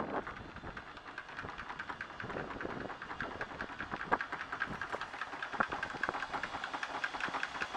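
Anchor windlass hauling in chain, the links clattering over the gypsy in a fast, steady rattle.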